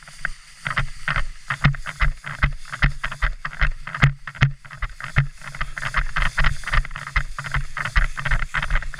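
A player moving on foot through woodland brush: irregular crunching steps and rustling, several a second, with clothing and gear brushing close against the microphone.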